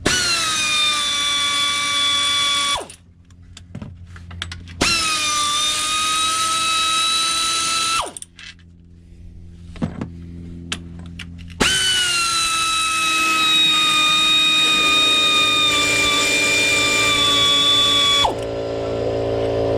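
Pneumatic air ratchet running in three bursts as it spins out oil pan bolts, a high whine that dips in pitch as it takes hold and then runs steady; the third run is the longest. Near the end the whine stops and a lower, steady hum remains.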